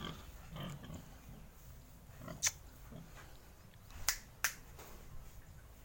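Three sharp clicks, the last two close together near the end, over a few faint low animal sounds.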